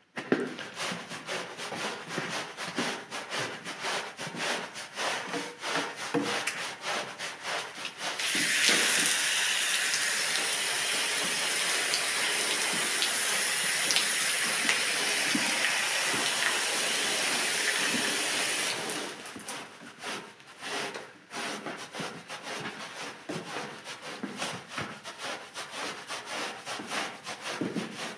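Stiff-bristled push broom scrubbing a soapy rug, with quick rhythmic strokes through wet foam. From about eight seconds in, a loud steady hiss covers it for about ten seconds, then the rhythmic scrubbing strokes are heard again.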